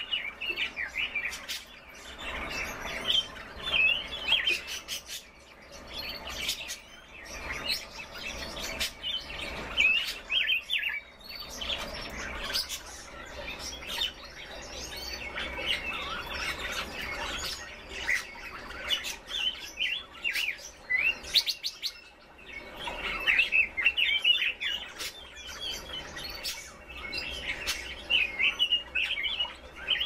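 Caged red-billed leiothrixes (Pekin robins) chirping and calling: many short, quick-pitched chirps and sharp ticks in busy runs with brief lulls.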